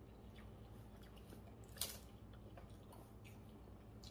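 Near silence: room tone with a few faint small clicks and one sharper click a little under two seconds in.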